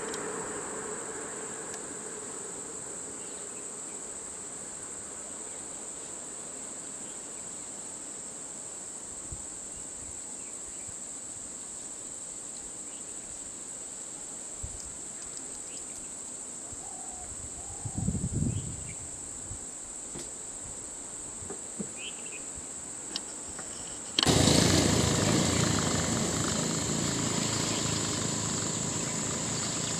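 Steady high-pitched drone of insects in the trees, with a brief low rumble about two-thirds of the way through. Near the end it jumps to a louder, fuller insect chorus over broad background noise.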